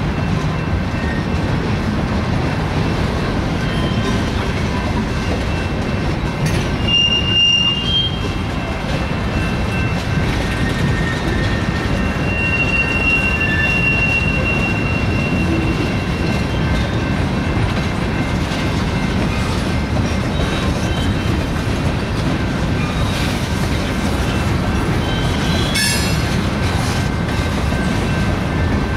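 Freight train of loaded tank cars rolling past with a steady rumble of steel wheels on the rails. Thin, high wheel squeals come in about seven seconds in and again for a few seconds past the middle, and a short clatter of clicks comes near the end.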